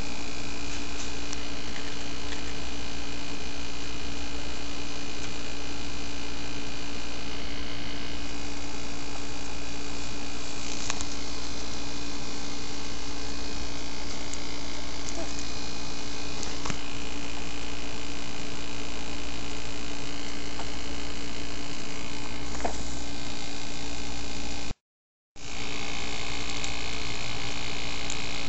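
Steady electrical hum with hiss and a low rumble, with a few faint clicks. The sound cuts out completely for about half a second near the end, then resumes the same.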